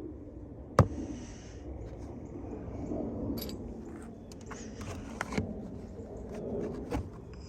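Hand-tool and parts handling while the oil filter housing cap is taken off: one sharp knock about a second in, then scattered clicks and brief rustles.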